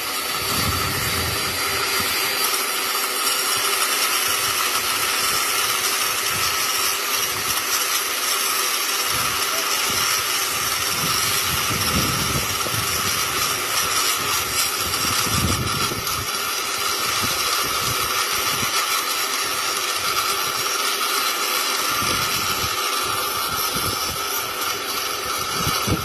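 Angle grinder running at full speed with a steady high whine, its cutting disc grinding through a steel bar and into the concrete surface beneath.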